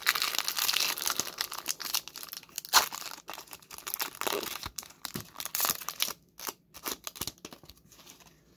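Foil wrapper of a Pokémon Silver Tempest booster pack being torn open and crinkled, then the cards pulled out and handled. Dense crackling for the first couple of seconds, then sparser crinkles with one sharp crackle about three seconds in, thinning out near the end.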